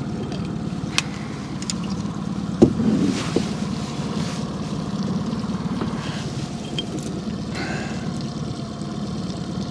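Outboard motor running steadily at low speed, a low even hum. A few sharp clicks and knocks, the loudest about two and a half seconds in.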